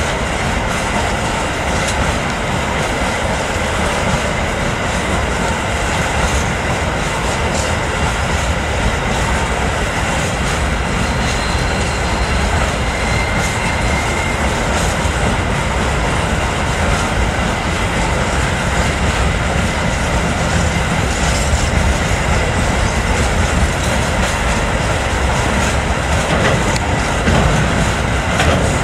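Freight train wagons rolling past on a curve: a steady wheel-on-rail rumble with clickety-clack of wheels over rail joints, and a faint high wheel squeal briefly around the middle.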